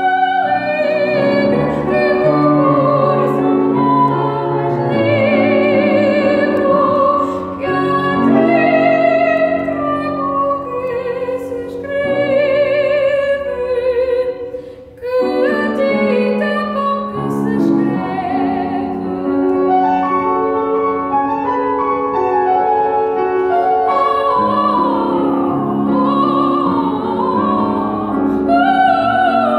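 Female classical singer singing an art song or aria with wide vibrato, accompanied by a grand piano. Voice and piano break off briefly about halfway through, then resume.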